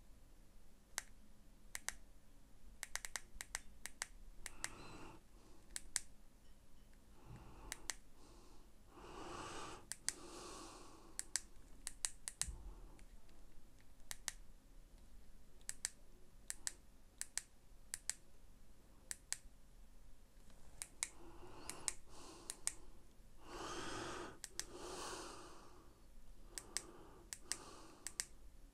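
Small push buttons on an Aspire Rhea X box-mod e-cigarette clicking, irregular sharp clicks, sometimes in pairs or quick runs, as its settings menu is stepped through. Two longer soft handling noises come about ten and about twenty-four seconds in.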